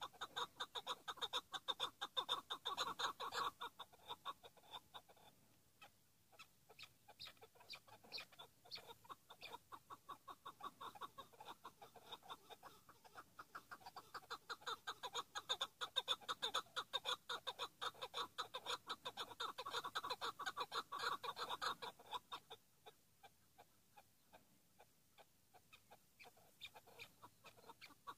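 Chukar partridge calling: fast runs of clucking notes, several a second, in bouts that are loudest in the first few seconds and again from about 14 to 22 seconds in.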